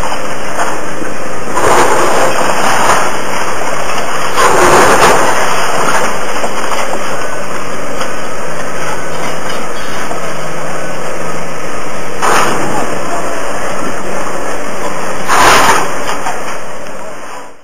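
Komatsu hydraulic excavator running through a demolition, with concrete and debris crashing down a handful of times over a steady din. The sound fades out near the end.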